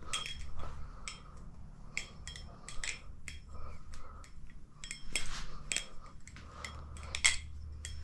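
Maxace Petrel balisong with titanium channel handles on tang pins being flipped: an irregular run of metallic clicks and clacks as the handles swing and knock together, several with a brief high ring. The pivots are not yet tightened.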